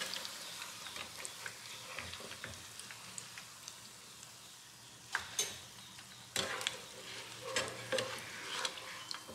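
Hot oil sizzling and crackling around bao buns deep-frying in a small pot. A wire spider skimmer lifts them out, with a few sharp clinks against the pot in the second half.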